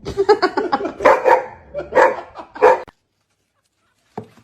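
A dog barking in a quick run of short barks, which stops about three seconds in; a single click comes near the end.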